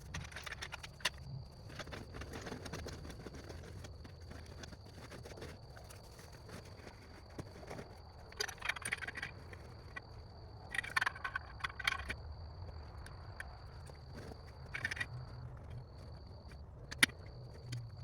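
Rustling and scraping of a pop-up A-frame hunting blind's fabric and frame being taken down and rolled up, in a few short bursts with a sharp click near the end, over a steady high-pitched tone.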